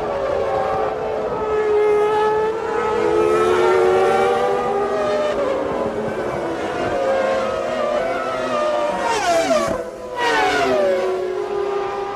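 Several 1995 Formula One cars' naturally aspirated 3-litre engines running at high revs, their notes overlapping. About nine and ten seconds in, the pitch falls steeply twice as cars pass and shift down.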